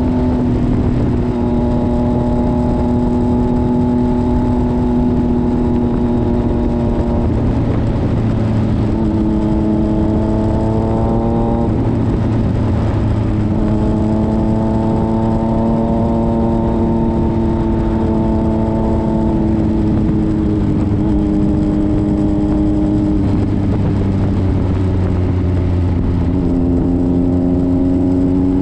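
Motorcycle engine running at road speed, its pitch rising and falling several times with the throttle, over a steady rushing wind and road noise.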